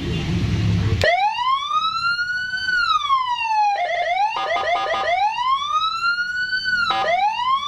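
Senken custom police-escort electronic siren playing its long wail tone through a 15-watt Toa speaker. The wail starts about a second in, slowly rising and falling in pitch, breaks into a rapid stuttering warble near the middle, then rises again.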